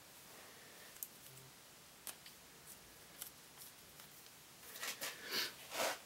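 Small plastic and metal parts being handled while plastic ferrules are fitted onto the ends of a bicycle gear cable housing: a few light clicks, then several louder scrapes near the end.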